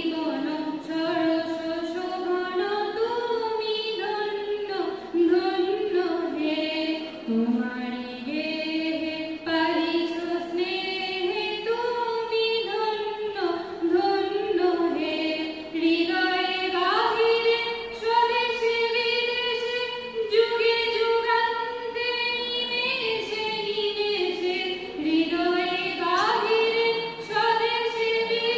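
A woman singing a slow song unaccompanied into a microphone, with long held notes.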